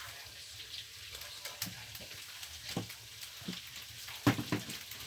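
White glue being squeezed into a bowl for slime: faint crackling, sizzle-like squishing with a few soft knocks near the middle and end.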